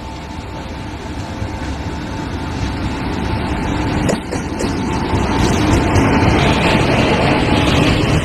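An Indian Railways WAG-7 electric locomotive hauling a passenger train approaches and passes close by, its rumble of wheels on rail growing steadily louder until the locomotive is alongside. There is a single sharp knock about four seconds in.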